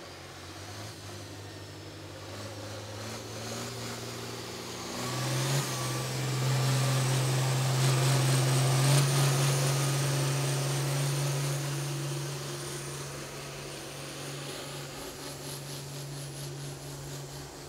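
Engine of a pulling vehicle running under full throttle as it drags the weight sled down the pulling track. It is a steady engine note that steps up in pitch and grows louder about five seconds in, then fades over the last few seconds.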